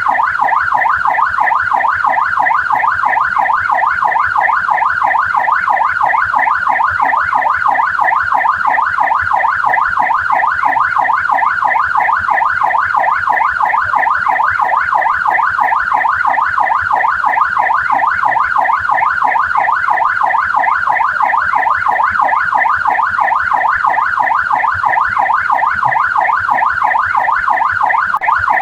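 Australian police car siren in yelp mode: a rapid, steady warble whose pitch sweeps up and down about three to four times a second.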